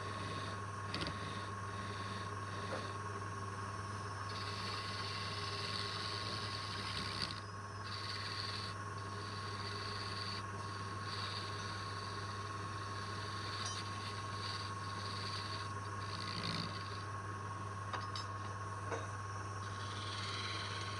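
Wood lathe running with a steady hum and whine, while a turning tool cuts the spinning wood in short passes: a hissing scrape that starts and stops every second or so.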